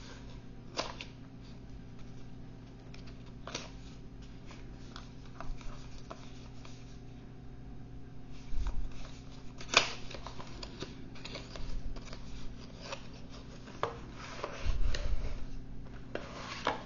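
Paperboard retail box being handled and slid open by hand: soft rubbing and scraping of card with small clicks and taps, one sharper click about ten seconds in, and a few soft knocks as the box and its plastic tray are set down on the table.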